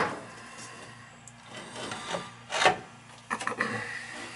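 Rubbing and scraping as hands work the washing-machine valve fittings and hoses in the wall box, with one sharp knock about two and a half seconds in and a few clicks just after.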